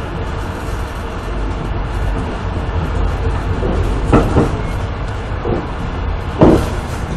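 Steady low rumble of a moving passenger train heard from inside the carriage: wheels running on the rails. A quick pair of knocks comes about four seconds in, and a louder single knock comes near the end.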